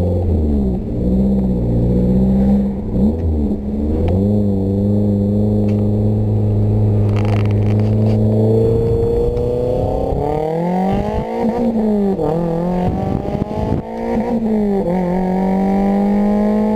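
A 1999 Mazda Miata's 1.8-litre four-cylinder engine and exhaust under way while driving. The engine note holds steady, climbs in pitch past halfway, drops suddenly as if at a gear change, then climbs and levels off again.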